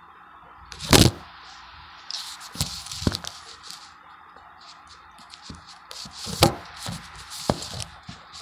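Cardboard tube of a refrigerated dough can being peeled and handled, the spiral paper wrapper crinkling and tearing. There is a loud sharp crack about a second in, then scattered clicks and scrapes.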